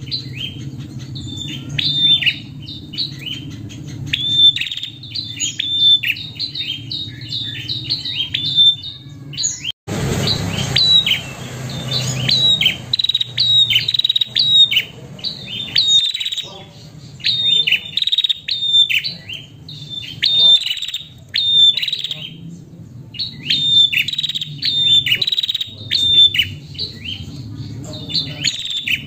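Female prenjak calling: rapid runs of sharp, high chirps, several a second, in bursts of a few seconds with short pauses between. A steady low rumble lies underneath, and for several seconds about a third of the way in a hiss joins it.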